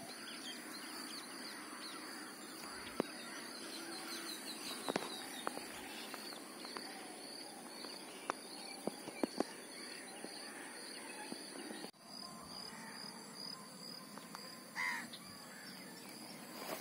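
Quiet lakeside outdoor ambience with birds calling: a bird chirps repeatedly in the first few seconds and a single short call sounds near the end. A few faint sharp clicks fall in the middle.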